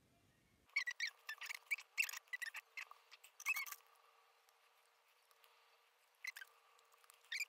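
Scissors snipping paper: a quick run of short, squeaky snips from about a second in, a pause, then more snips near the end.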